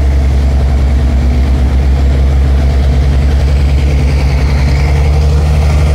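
Snow groomer's engine running steadily in a low, even drone as it tows a line of skiers uphill on a rope.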